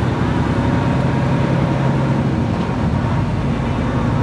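Inside the cab of a Freightliner Cascadia semi-truck on the move: steady diesel engine drone and road noise.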